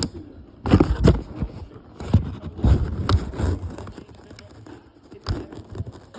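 Toy packaging being handled: plastic and cardboard scraping and crackling, with several sharp knocks and clicks.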